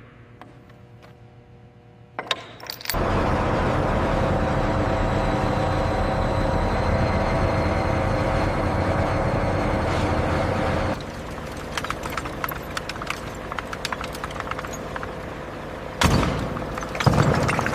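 A machine starts about three seconds in and runs loudly and steadily, with a few steady tones in its noise, then cuts off suddenly. Scattered crackling clicks follow, and there are two heavy knocks near the end.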